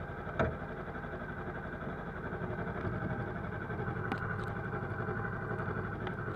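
Yamaha R3 parallel-twin engine idling steadily with the motorcycle standing still, with a short knock about half a second in and a few faint clicks later.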